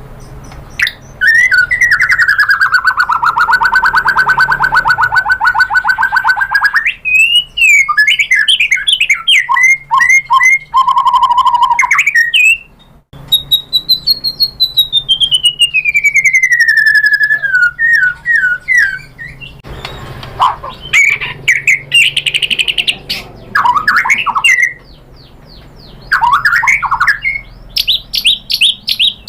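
White-rumped shama singing a loud, varied song with no pauses for speech. It opens with a long rapid trill, then quick warbled phrases. A long slow whistle slides downward in the middle, and more quick chattering phrases follow.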